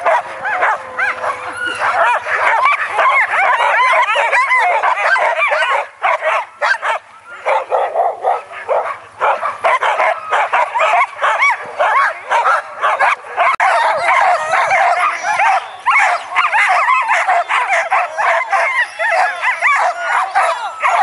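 Many harnessed sled dogs yipping, barking and howling together in a dense, continuous chorus of high, excited yelps, the clamour of a dog team held at the start line and eager to run. It dips briefly about six seconds in.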